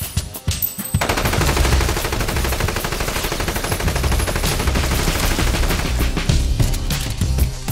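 Long burst of automatic gunfire, a rapid run of shots starting about a second in and continuing for several seconds, with music underneath.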